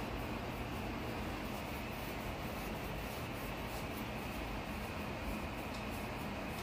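Soft, steady rustling and rubbing right against a phone microphone as a pit bull's fur and the bedding brush over it, over a constant hiss, with a few faint clicks.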